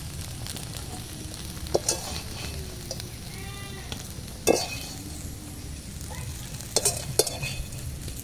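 Wire skimmer scraping and clinking against an aluminium kadai and a steel bowl as fried soya chunks are scooped out, with a few sharp knocks, the loudest about four and a half seconds in, over a steady low background noise.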